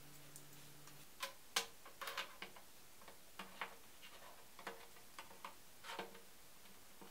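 Irregular clicks and knocks of hard 3D-printed plastic parts and a square wooden stick being handled and fitted together on a wooden tabletop. The loudest is a sharp knock about one and a half seconds in.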